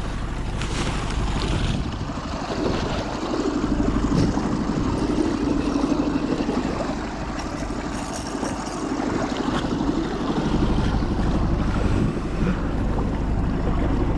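Wind buffeting the microphone over the sound of moving water, with a low steady drone running through the middle.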